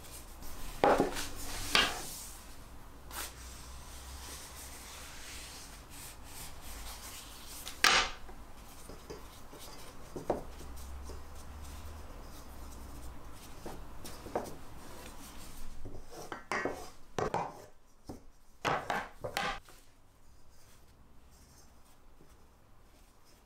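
Scattered knocks and rubbing as thin hand-rolled phyllo pastry is unwound from a long wooden rolling pin and smoothed into a round metal baking tray, with a run of sharper knocks in the last third.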